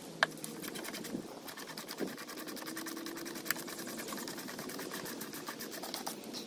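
Rapid, even mechanical clicking, about ten clicks a second, with a few single louder knocks.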